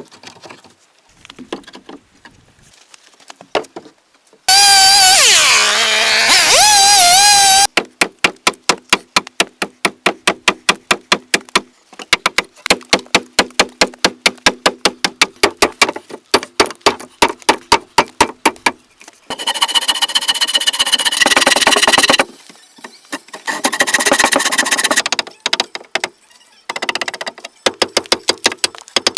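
Construction work sounds from restoring a log cabin. A loud whining power tool runs for about three seconds, then comes a long run of rapid, evenly spaced knocks like hammering. Loud bursts of tool noise come near the end.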